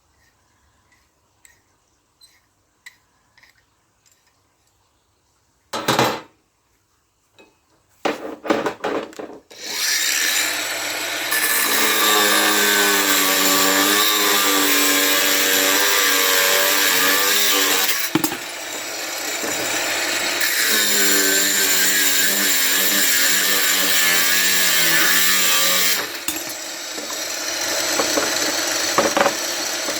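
Power tool cutting scrap brass. After a short burst and some clicks, the motor runs loud and steady from about ten seconds in, with its hum wavering under load. It eases briefly twice, near the middle and again near the end.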